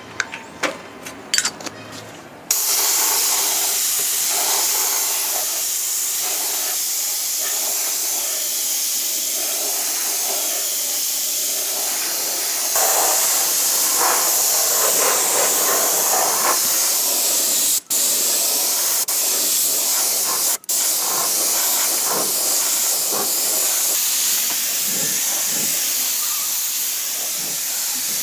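A few sharp clicks, then about two and a half seconds in a loud, steady spraying hiss starts and runs on, cutting out twice for a moment near the middle.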